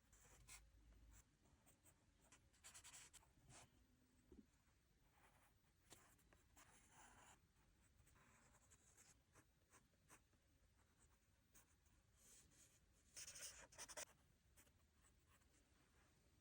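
Faint scratching of a graphite pencil on paper: short, irregular sketching strokes and bursts of shading, with the loudest cluster of strokes near the end.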